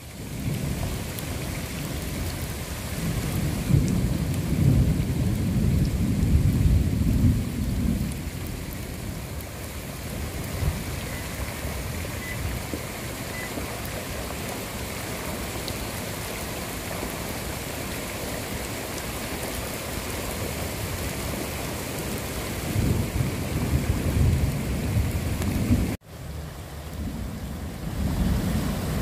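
Muddy floodwater rushing down a rocky wadi bed: a steady rush of water, with stretches of heavier low rumbling a few seconds in and again near the end. The sound breaks off for an instant near the end, then carries on.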